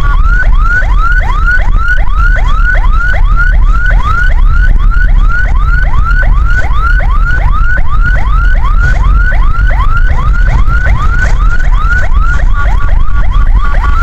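Ambulance siren in yelp mode: a quick rising wail repeating about three times a second, over a loud low rumble. Near the end it shifts toward a steadier pattern of short tones.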